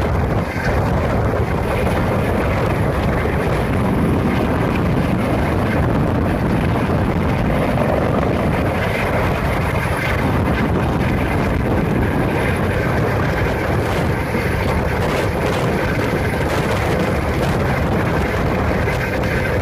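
Steady, loud engine roar with no let-up, an added sound effect dubbed over the Atlas Centaur launch footage.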